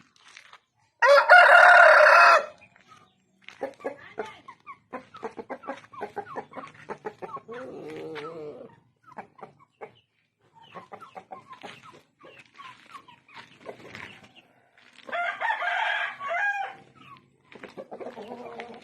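A bird gives two loud, crow-like calls, the first about a second in and the second near the end. Between them come many short clucks and clicks.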